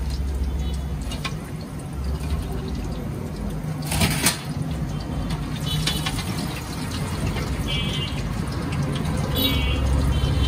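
Hot oil sizzling and bubbling in a large iron wok as papad chips fry and are lifted out with a metal slotted skimmer, with a brief louder burst of sizzle about four seconds in. A low, steady rumble runs underneath.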